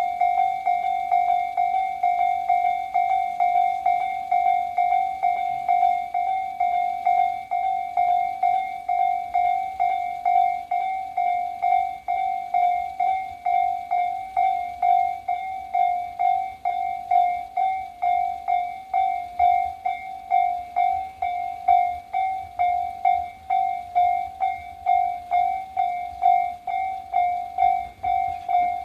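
Japanese railway level-crossing warning bell, the electronic Tobu Tojo Line type, dinging in a rapid, even rhythm on one pitch: the crossing is signalling an approaching train. A low rumble builds near the end.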